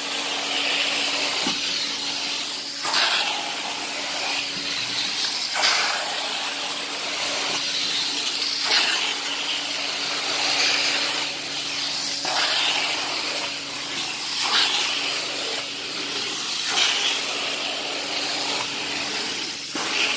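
Carpet-cleaning extraction wand working over wet carpet: a steady suction hiss over a low machine hum, swelling every two to three seconds with each stroke of the wand.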